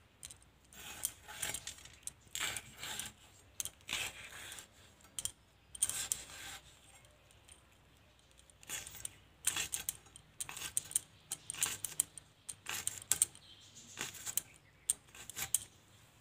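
Green bell pepper being chopped into small pieces against a bonti's curved blade: a run of short, crisp cutting snaps, coming in quick clusters with short pauses between.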